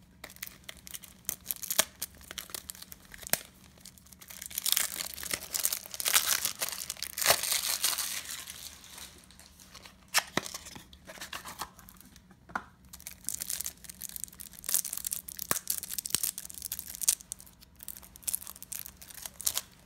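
Plastic wrapping of a Magic: The Gathering tournament pack being torn and crinkled as the box is opened and the card stack unwrapped, in stretches of rustling with scattered sharp clicks.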